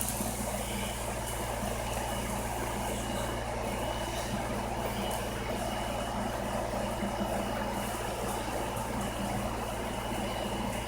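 Steady low mechanical hum with a faint high whine, unchanging throughout.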